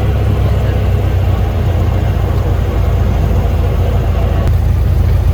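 Cessna 150's four-cylinder Continental O-200 engine running steadily, a deep even drone.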